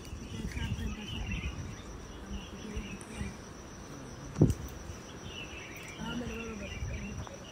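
Insects trilling in one steady high-pitched tone, with a single sharp thump about four and a half seconds in.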